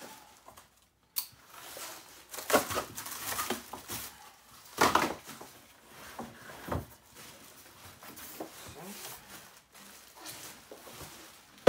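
Unpacking noises: plastic wrap crinkling and cardboard packing and boxed parts rustling, shifting and knocking in irregular bursts, with one sharp knock about a second in.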